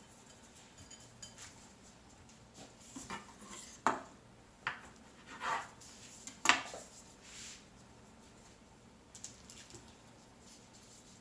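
Kitchen utensils and dishes clinking and scraping in short, irregular knocks and brief scrapes, the sharpest clink about six and a half seconds in, with a few light taps near the end.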